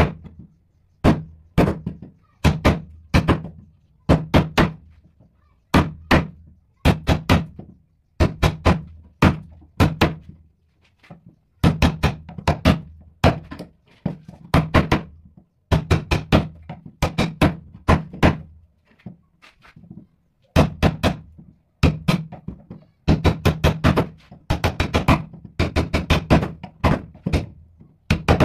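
Wood chisel being driven into a thick wooden block by blows on its handle, chopping out square recesses: sharp knocks in quick runs of two to five strikes, with short pauses between runs.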